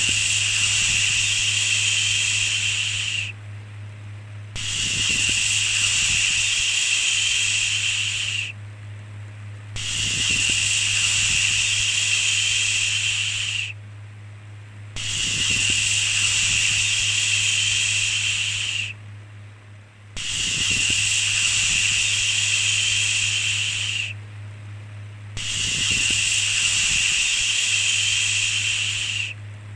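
Long shushing 'shhh' sounds, each about four seconds, repeated six times with pauses of about a second between them. A steady low hum runs underneath.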